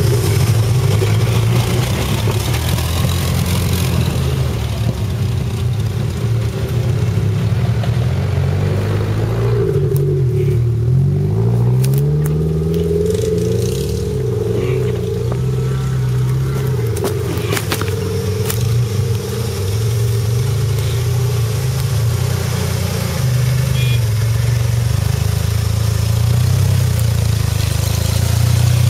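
Engine of a jeep-style off-road 4x4 running at low speed while it crawls over rough muddy ground, with the revs rising and falling a few times around the middle and a few sharp knocks.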